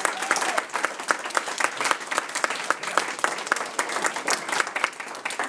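Audience applauding, a dense run of hand claps that thins out a little toward the end.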